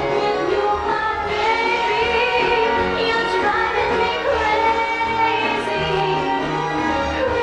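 Pop song with a woman singing a slow melody over a synthesizer backing and a moving bass line, remixed with 8D panning and arena-reverb effects.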